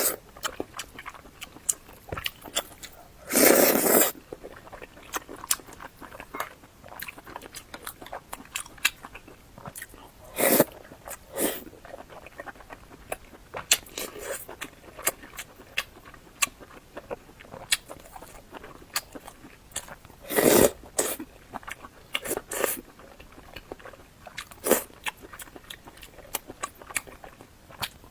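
Close-miked eating of braised pork rice soup with a fried egg: steady chewing and biting with many small wet mouth clicks, broken by a few louder, longer bursts.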